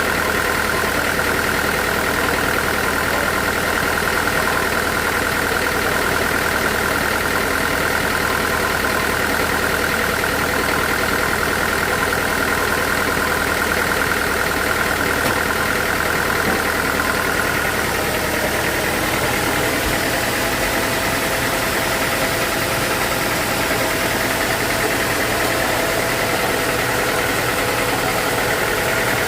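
Sawmill machinery running steadily with a constant whine; about 18 seconds in the whine gives way to a slightly higher tone and the low hum drops a little.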